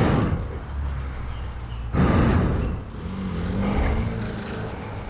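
Dirt bike engine revving in loud bursts, one at the start and another about two seconds in, then a shorter rise in pitch near the middle.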